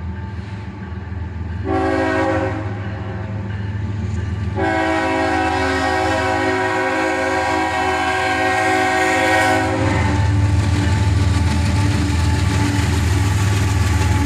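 Diesel locomotive air horn chord sounding a short blast, then a long one of about five seconds, typical of a road-crossing signal. It is followed by the loud, steady low rumble of the approaching locomotive's engine and the train on the rails.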